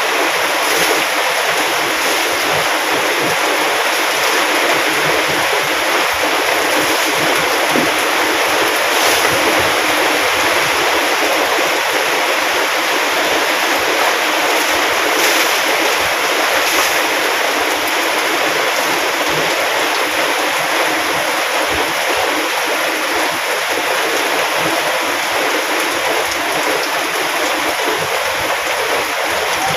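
Heavy rain pouring down steadily: a dense, loud hiss with no let-up.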